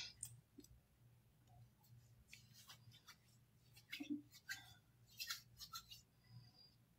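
Near silence: faint room tone with a low steady hum, and a few soft short ticks and rustles between about four and six seconds in.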